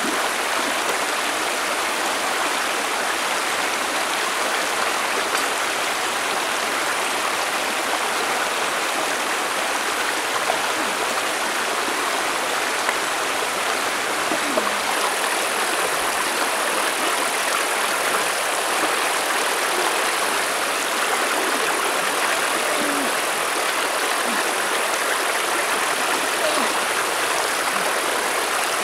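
Shallow, fast-flowing rocky stream rushing steadily over stones.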